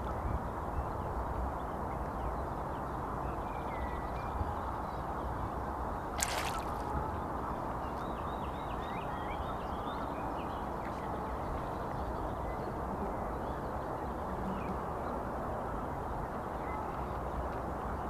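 Outdoor wetland ambience: a steady wash of background noise with faint small birds singing and calling in short chattering phrases, busiest around the middle. One brief harsh noise cuts through about six seconds in.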